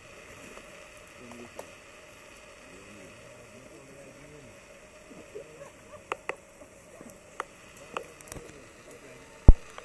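Faint, distant voices of a group talking, with a few sharp clicks and knocks in the second half and one loud, short thump near the end.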